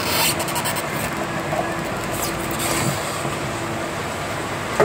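Steady background noise, with a few light clicks in the first half second and a faint low hum in the middle of the stretch.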